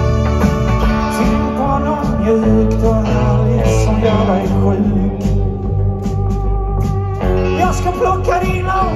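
Live rock band playing: electric guitars, bass and keyboard with drums, and a singer's voice over them, heard through the room's PA. The high cymbal wash drops out for about two seconds in the middle, then comes back.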